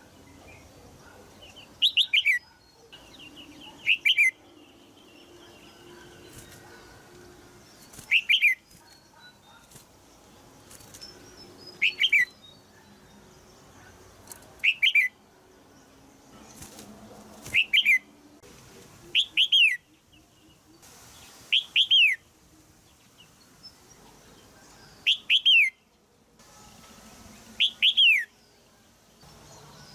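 Red-whiskered bulbul hen giving sharp chirping calls, about ten times, each a quick doubled note falling in pitch, spaced every two to four seconds.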